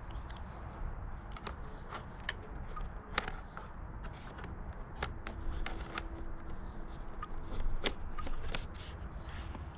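Irregular small clicks, taps and light scrapes of hands handling and fitting motorcycle parts during reassembly, over a low steady rumble.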